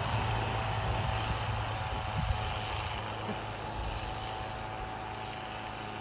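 Pickup truck engine running under load as it tows another truck through deep snow, a steady drone that slowly grows quieter.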